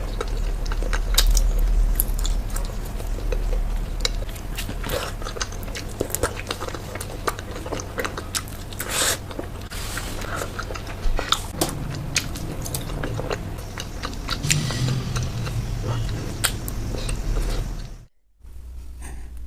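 Close-miked biting and chewing of Indian sweets, with many short sharp clicks and crunches over a steady low hum. The sound cuts out briefly near the end.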